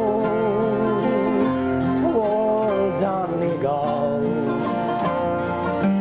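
Live country-folk band music: a man singing a song over guitar and electric bass guitar.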